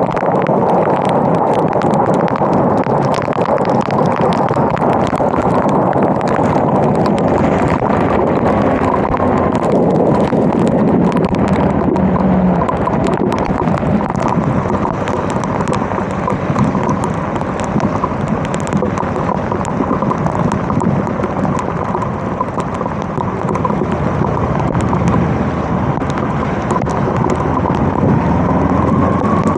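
Kawasaki KLE 250 motorcycle being ridden in heavy rain: steady wind rush on the microphone over the running engine, with many raindrops ticking against the mic. The engine note rises near the end.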